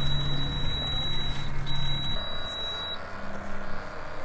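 Two long, steady, high-pitched electronic beeps, each over a second long with a short gap between them, over continuous background noise.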